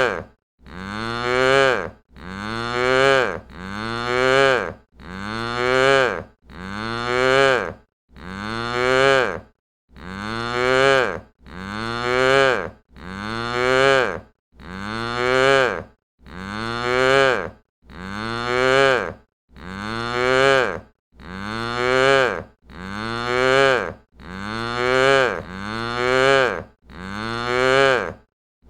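A cow's short dry moo, the same call repeated about twenty times, one every second and a half or so, with brief silent gaps between them. Each moo swells and then cuts off abruptly.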